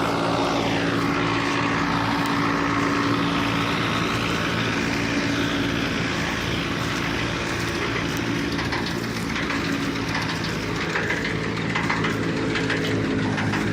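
Wheat threshing machine running with its engine: a steady drone under a rushing, rattling noise from the threshing drum, with a brief falling whine in the first second.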